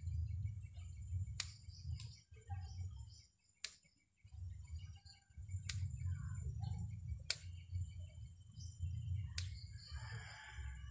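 Scissors snipping thin bonsai branches: about six sharp clicks a second or two apart, over a steady low hum, with birds chirping, most near the end.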